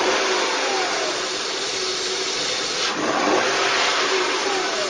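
Car engine idling and revved twice, once at the start and again about three seconds in; after each short blip the pitch falls back to idle. It is running without its home-built hydrogen (HHO) cell switched on.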